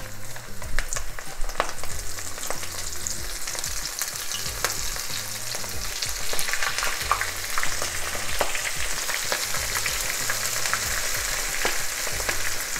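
Clumps of cockle meat coated in a spiced egg and gram-flour batter deep-frying in hot oil in a pan. A steady sizzle full of small crackles, getting louder about halfway through.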